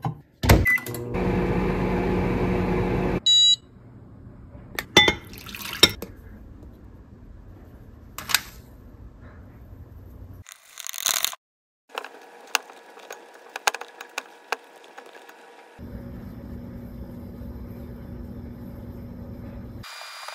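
Microwave oven running with a steady hum for about two seconds while heating a cup of water, then beeping as it finishes. After that come scattered clicks and taps of a spoon and bowl.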